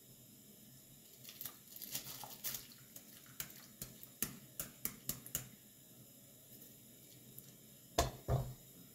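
A metal mesh strainer clicking and tapping against the rim of an enamel pot as soaked rice is tipped out of it into water, a quick run of light taps over a few seconds. Two louder knocks near the end.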